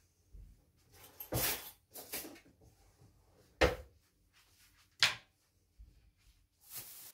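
Several separate knocks and clatters of kitchen things being handled and set down, among them a kitchen knife laid on a wooden cutting board.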